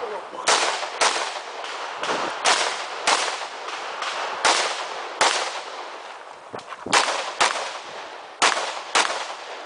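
Sig Sauer 516 gas-piston rifle fired in five quick pairs of shots (double taps), the two shots of each pair about half a second apart and the pairs one and a half to two seconds apart; each shot rings off in a short echo.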